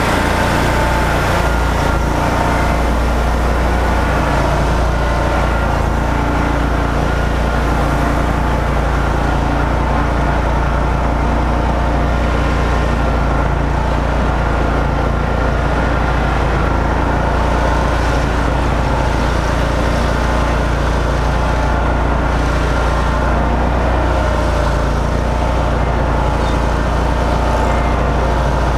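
Zero-turn riding lawn mower engine running steadily while mowing, with a constant low hum and engine drone.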